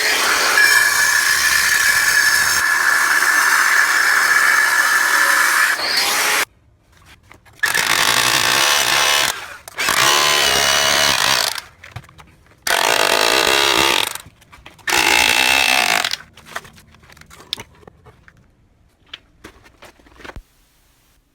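Hilti TE 70 rotary hammer chiselling into a pool's gunite wall to open up a crack. It runs in five bursts: one of about six seconds, then four shorter ones of a second or two, and is then off for the last few seconds.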